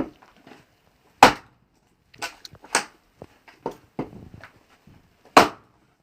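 An axe striking a thick oak log being split for firewood: a series of sharp woody chops. The two hardest blows land about a second in and near the end, with lighter knocks between them.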